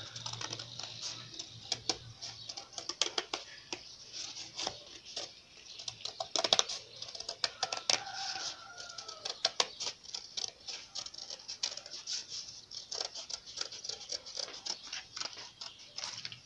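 Scissors cutting through thin corrugated cardboard, a rapid, irregular run of crunching snips and clicks as a ring is cut out.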